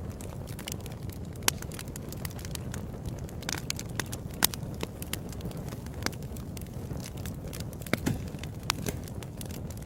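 Wood fire crackling in a fireplace: a steady low rush of flames under frequent sharp pops and snaps. The loudest pops come about a second and a half in, about four and a half seconds in and about eight seconds in.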